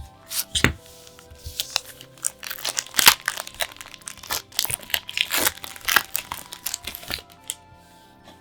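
Packaging wrap crinkling and being torn open by hand: a dense run of short crackles, busiest from about two and a half to seven seconds in, over background music.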